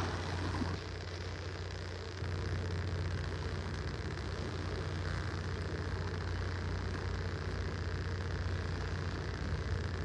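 Steady outdoor background noise at the shoreline of calm water: a low rumble under an even hiss, easing a little about a second in and coming back up about two seconds in.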